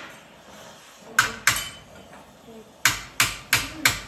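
Claw hammer striking a torch-heated steel bar, sharp metallic blows: two about a second in, then a steady run of about three blows a second from near three seconds in.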